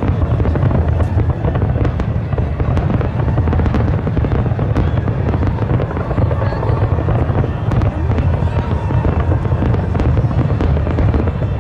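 Aerial fireworks bursting in rapid, overlapping succession: a continuous low rumble of bangs with many sharp cracks on top.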